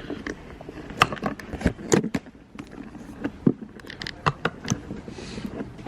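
Irregular crunching steps through snow, in two runs with a short pause between.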